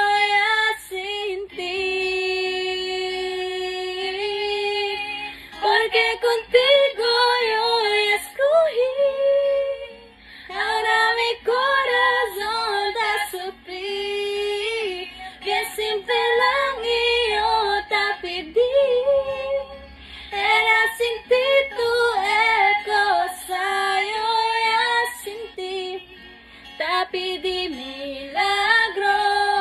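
A woman singing solo, the melody gliding between notes, with a long held note a couple of seconds in.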